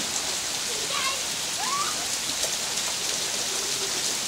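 Heavy rain falling steadily on pavement and grass, a continuous even hiss.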